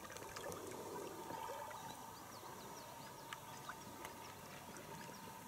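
Faint water lapping around an inflatable boat on a river, with a few light ticks a little past halfway.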